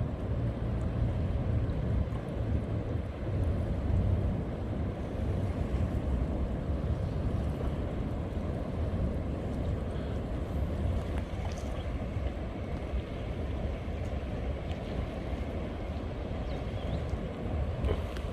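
Large waves breaking on an offshore reef, heard as a continuous low rumble of surf that swells and ebbs, with wind buffeting the microphone.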